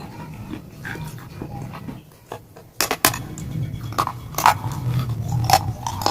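Close-up crunching and chewing of a piece of shale stone in the mouth, with sharp crunches about three seconds in and several more toward the end, after a short quieter pause.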